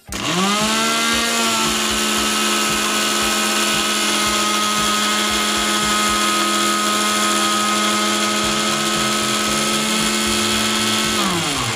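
Electric mixer grinder running with its jar full of wet green chutney paste (chillies, coriander, garlic, ginger and a little water). The motor whine climbs to full speed over about the first second and a half, holds steady, and winds down with a falling pitch just before the end.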